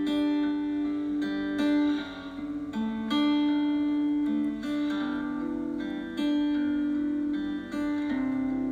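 Background music: an acoustic guitar playing a slow run of plucked, held notes that change about once a second.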